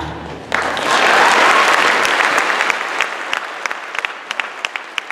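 Audience applauding at the end of a song: the accompaniment's last chord fades out, the applause breaks out about half a second in, then thins to scattered individual claps near the end.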